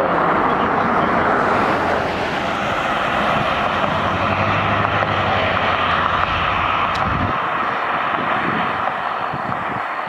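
Distant fire engine sirens, a Federal Q mechanical siren with an electronic wail, heard from afar over passing traffic as a steady, dense whine. A passing vehicle adds a low rumble about midway that ends about seven seconds in.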